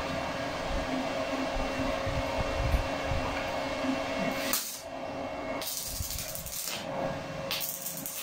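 Stick-welding (SMAW) arc struck by scratching the electrode across the steel plate: the arc hisses and crackles in several bursts from a little past halfway, over a steady hum.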